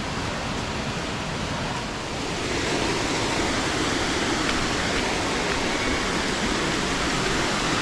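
Waterfall and river water rushing steadily, a little louder about two and a half seconds in.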